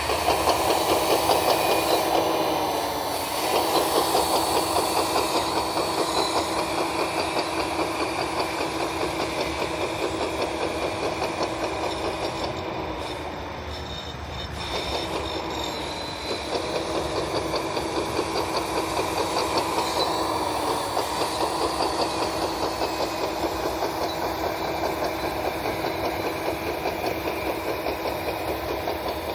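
Radio-controlled model Caterpillar D10 bulldozer running: a steady mechanical drone with a fast pulsing beat, which changes pitch several times and dips in level about halfway through as the model changes speed.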